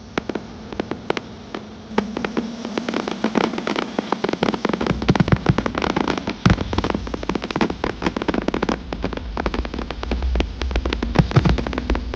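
Fireworks going off in rapid succession: a quick run of sharp bangs and crackles, sparse at first and dense from about two seconds in.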